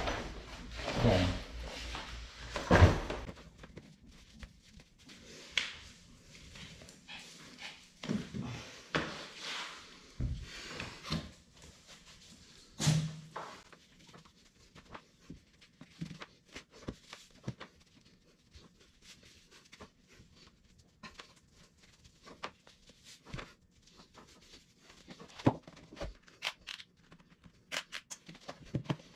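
Scattered rustles, clicks and knocks of cycling clothes and kit being taken out of a bag and handled in a small room, with a denser burst of handling in the first few seconds and occasional sharper knocks.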